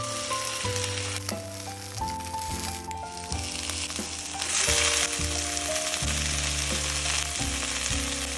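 Salmon fillets and asparagus sizzling in hot olive oil in a cast iron skillet, a steady frying hiss that grows louder about halfway through. Background music plays underneath.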